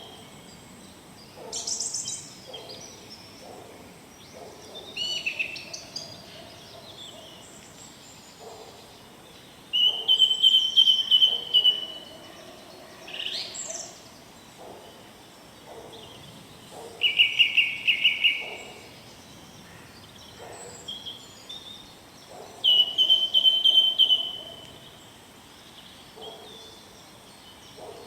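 Birds singing. A loud, rapid trill comes three times, about ten, seventeen and twenty-three seconds in, each lasting about a second and a half, with fainter chirps and lower calls in between.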